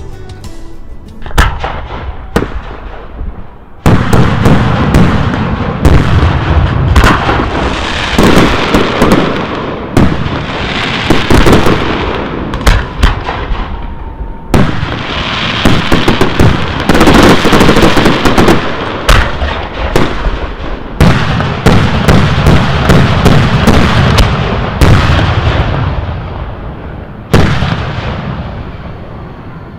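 Aerial firework shells, ball and cylinder shells of 75 to 150 mm, bursting in quick succession: a couple of single bangs first, then from about four seconds in a dense barrage of overlapping bangs that thins out near the end.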